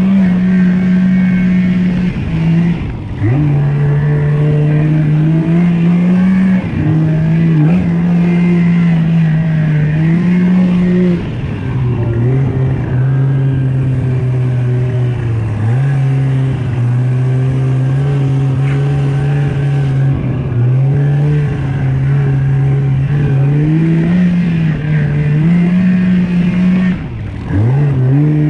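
Snowmobile engine running under throttle. Its steady drone shifts up and down in pitch in steps, and it eases off briefly a few times.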